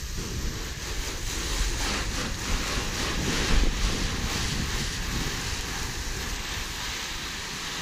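Garden hose spray nozzle sending a steady jet of water onto a car's body panels, rinsing off the wash soap: a continuous hiss and splatter.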